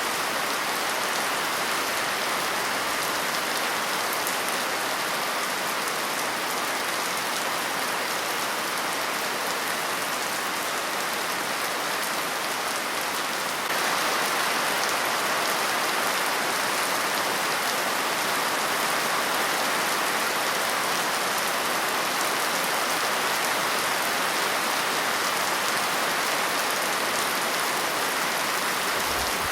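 Steady rain falling, a dense even hiss with no let-up; it steps slightly louder about fourteen seconds in.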